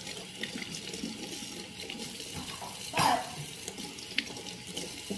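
Water running from a tap into a sink, a steady rushing with light clinks and knocks; a brief louder sound about three seconds in.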